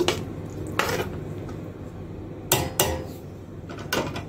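Spoon knocking and scraping against a cooking pot as cooked dal is stirred: about five short clinks, two of them close together near the middle.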